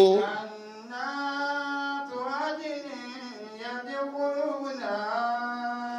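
A man's voice chanting Arabic Quranic verses in a slow melodic recitation, drawing out long held notes in several phrases.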